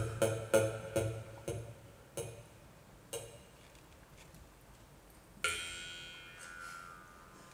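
Jaw harp (mouth harp) twanged in single plucks that slow down and soften, about six, each ringing briefly. About five and a half seconds in comes one louder twang that rings on a high overtone and fades away.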